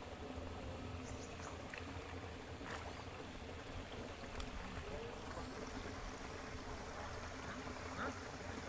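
Quiet open-air background: a steady low rumble with a few faint ticks and, now and then, faint distant voices.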